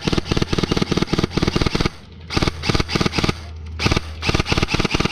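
Airsoft rifle firing three rapid strings of shots, roughly six to eight a second, with brief pauses about two seconds in and again near three and a half seconds in.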